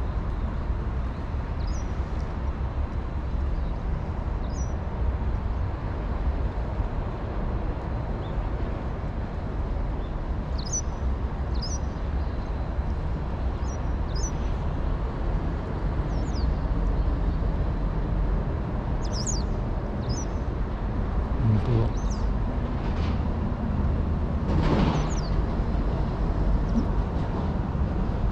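A steady low outdoor rumble, with small birds giving short high chirps every few seconds.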